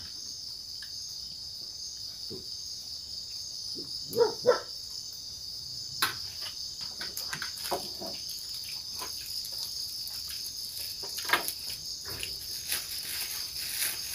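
Night-time insect chorus: a steady, high, even chirring that carries on throughout. Scattered small clicks and knocks sit over it, with two brief louder sounds about four seconds in.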